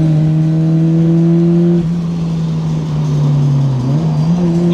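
Car engine running at high, steady revs under load, its pitch sagging slightly about three seconds in and climbing back just after four seconds.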